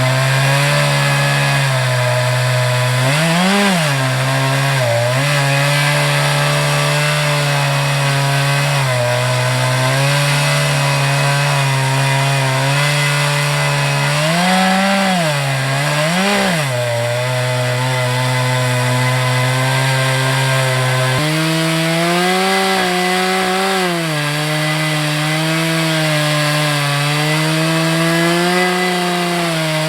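Two-stroke chainsaw, an Echo CS-590 Timber Wolf, ripping a log lengthwise in an Alaskan mill, its engine held steady under load. The engine note briefly swings up and back a few times and steps up to a higher, slightly wavering speed about two-thirds of the way through.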